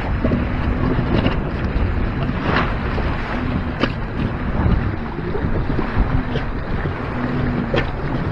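Wind buffeting the microphone over water rushing past the hull of a Siren 17 sailboat under sail, with a few sharp slaps and a faint low hum that comes and goes.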